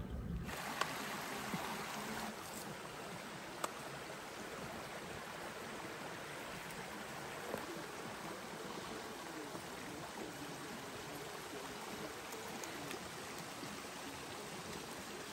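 Shallow woodland stream running over stones: a steady rush of water, with a few faint clicks, the sharpest about three and a half seconds in.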